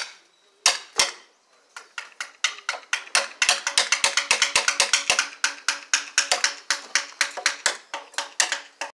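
Mallet knocking wooden slats into the end of a bamboo pole to build a ceremonial torch: two sharp knocks, then a steady run of about three or four knocks a second, with a faint ringing tone under them.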